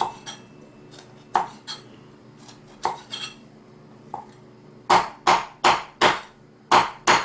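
Kitchen utensils and dishes clinking a few times, then a run of about six loud, sharp knocks at roughly three a second, starting about five seconds in, from pounding or chopping in the kitchen.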